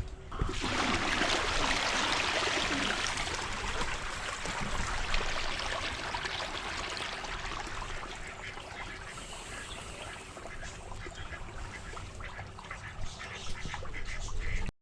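Muddy water splashing and pouring out as a flooded pond is emptied. The rush starts about half a second in and is loudest over the next few seconds, then keeps going a little softer.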